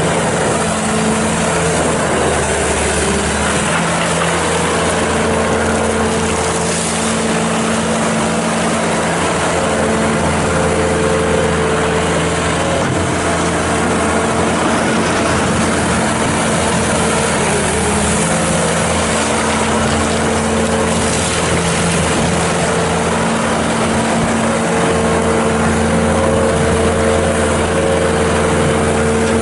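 Bobcat S650 skid steer's Kubota V3307 four-cylinder turbo diesel running steadily, its note shifting slightly up and down now and then.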